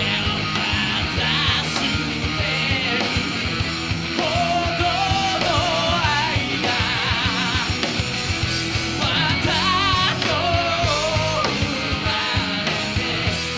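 Rock trio playing live: electric guitar, bass and drums, with a lead line that wavers in pitch.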